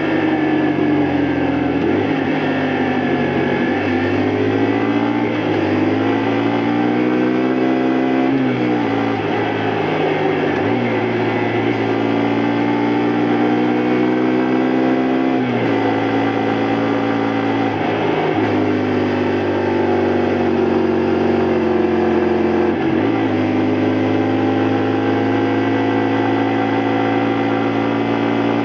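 2002 Honda Varadero XL125V's 125 cc V-twin engine running under way. Its pitch climbs with the revs and drops sharply several times, as through gear changes.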